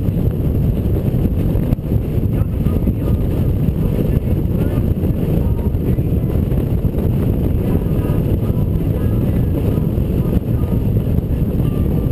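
Honda Gold Wing touring motorcycle cruising at highway speed: steady wind rush buffeting the microphone, with engine and road noise underneath.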